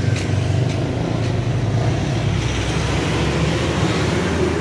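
Road traffic noise: motor vehicle engines running with a steady low rumble.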